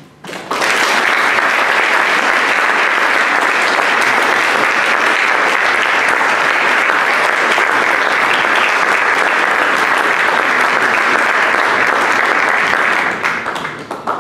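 Audience applauding: hand clapping that starts about half a second in, holds steady, and dies away near the end.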